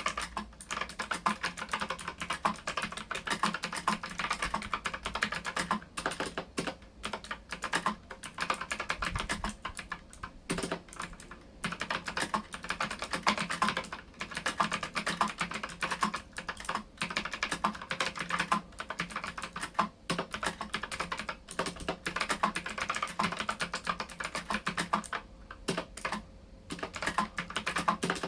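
Mechanical keyboard with clicky blue switches and typewriter-style keycaps being typed on at a steady pace. It makes a fast, dense run of sharp key clicks broken by a few short pauses.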